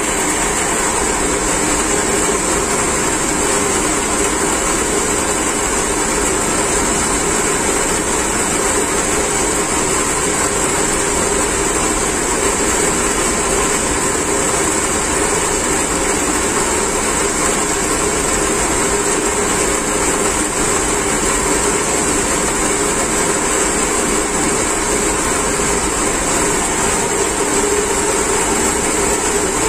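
Electric-motor-driven centrifugal pumps running steadily: a continuous even machine hum with a strong high-pitched hiss.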